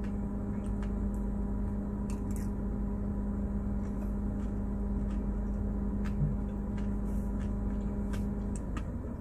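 A steady machine hum with a low rumble under it, stopping shortly before the end, with a few faint light clicks.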